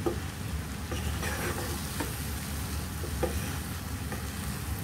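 Wooden spatula stirring par-cooked basmati rice in a nonstick pot: soft scrapes and taps every second or so, over a steady sizzle from the masala cooking underneath.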